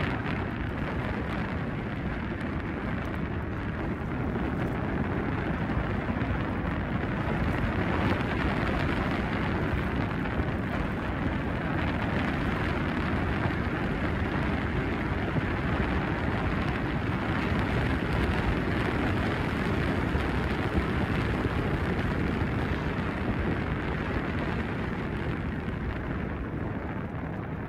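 Steady rush and rumble of wind buffeting the microphone while riding a T88-Plus electric scooter along a paved road.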